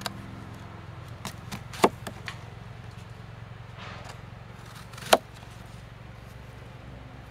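A knife cutting through an apple and knocking against a woven bamboo tray: several sharp cuts, the loudest about two and five seconds in, over a faint steady low hum.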